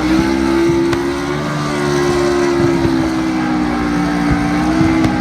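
Engines of NASCAR stock cars at speed, heard as one steady, sustained drone with a slight waver in pitch.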